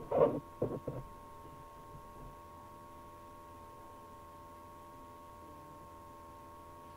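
A steady electrical hum made of a high tone and a few lower ones, over faint background noise. A few brief, loud voice-like sounds come in the first second.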